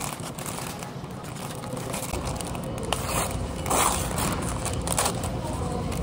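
Paper sandwich wrapper crinkling and tearing as hands pull it open halfway around the middle of the sandwich, getting louder from about two seconds in with a few sharper crinkles.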